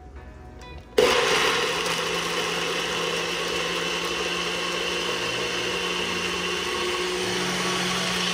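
NutriBullet personal blender motor starting suddenly about a second in and running steadily, blending eggs, coconut milk and shredded cheese into a smooth liquid.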